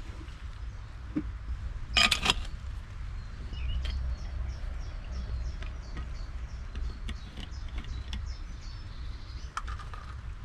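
A person handling gear and a metal thermos flask, with a short clatter of knocks about two seconds in and light clicks and taps after it. Birds chirp in the background over a steady low rumble.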